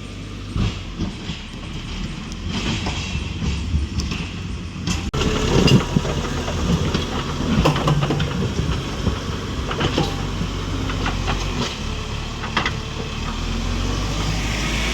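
A heavy engine running with irregular rattling and clanking, getting louder and busier about five seconds in.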